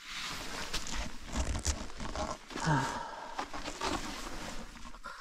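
Snow crunching and clothing rustling as a person shifts about on the packed-snow floor of an igloo, with many small crackles and a few soft low thumps.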